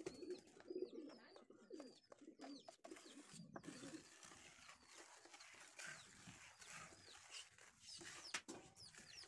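Faint background birds: pigeons cooing low and small birds chirping repeatedly. From about three and a half seconds in, a soft scraping hiss joins them as a scraper is drawn over the wet varnish on the solar panel glass.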